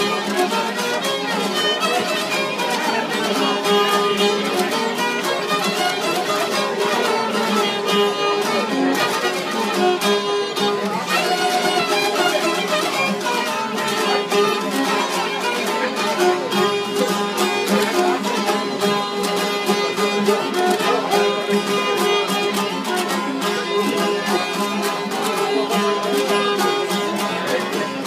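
Albanian folk instrumental: several long-necked plucked lutes played together in a steady, lively rhythm.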